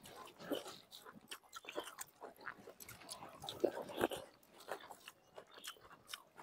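Faint, scattered crunching and chewing as crisp gupchup (pani puri) shells are bitten and eaten, with a few louder bites about three and a half to four seconds in.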